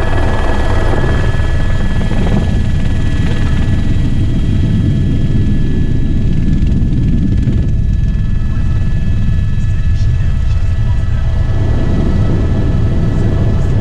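Skydiving jump plane's engine running at high power through the takeoff and climb, heard from inside the cabin: a steady loud rumble with a steady whine over it.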